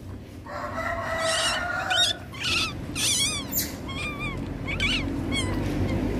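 Baby otter squeaking while it feeds from a milk bottle: one longer call about half a second in, then a run of short, high chirps that rise and fall in pitch.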